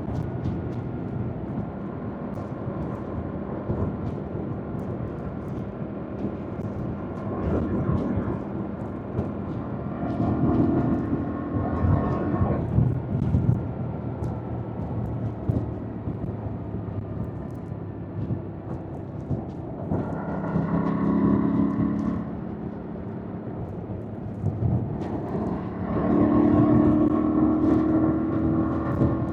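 2025 Yamaha MT-07's parallel-twin engine under riding: it revs up hard about ten, twenty and twenty-six seconds in, and runs quieter off the throttle in between, its pitch falling as it slows.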